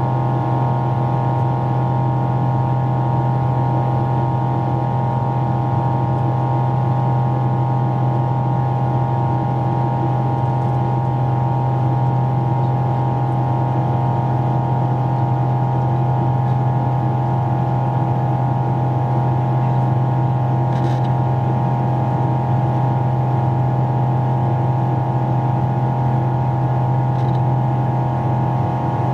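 Steady drone of an airliner's jet engines and airflow heard inside the passenger cabin, with a strong low hum and a higher whining tone that hold unchanged. Two faint clicks come near the end.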